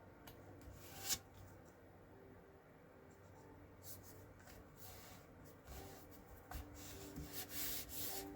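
Cardstock pieces being handled and rubbed down onto a card: soft paper rustling and rubbing, with one sharp click about a second in and busier rustling toward the end.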